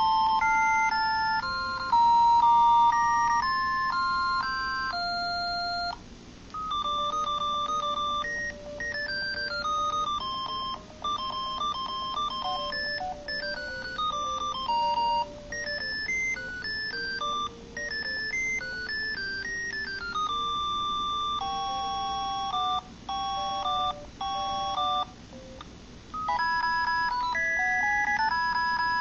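Audiovox CDM-9150X cell phone playing several of its beepy jingle ringtones in turn. Each is a quick run of single electronic tones hopping in pitch, with brief pauses between tunes.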